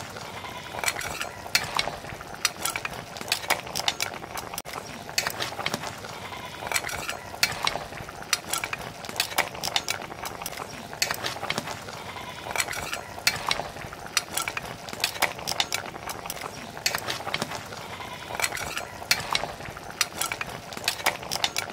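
A long metal spatula stirring beef trotter pieces in an aluminium pot. It scrapes and clinks against the pot's sides and bottom several times a second, in an uneven rhythm. Underneath is a steady hiss from the simmering pot.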